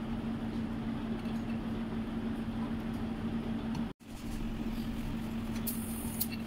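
A steady low hum over a constant background noise, cut off briefly about four seconds in before it resumes unchanged.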